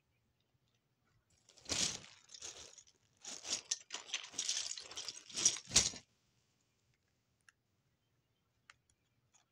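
Close rustling and crunching handling noise in a run of bursts. It starts about one and a half seconds in and stops about six seconds in, with a few faint ticks afterwards.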